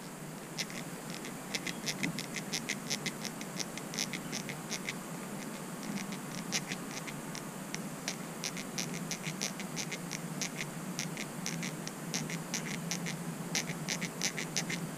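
Squirrel gnawing a nut: irregular runs of quick, dry, scratchy clicks, several a second, with short pauses between runs.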